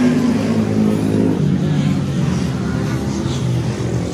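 A motor vehicle's engine running close by, a steady hum that shifts slightly in pitch about a second and a half in, over general street noise.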